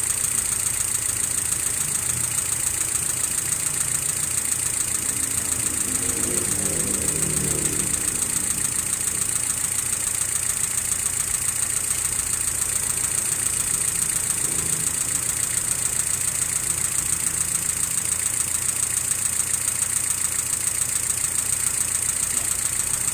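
Mitsubishi 4G33 four-cylinder engine idling steadily, with a fast, even pulse and a steady high-pitched whine over it. This is an engine whose rough idle was traced to a vacuum leak.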